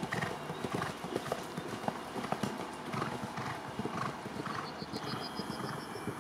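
Hoofbeats of a horse cantering, a steady run of dull thuds. About five seconds in there is a brief high, rapid chirping.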